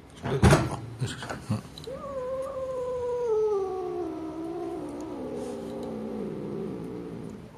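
Tabby cat giving one long, drawn-out yowl, about four seconds, that slowly falls in pitch while a hand strokes its head. A few short knocks and rustles of the cardboard box come just before it.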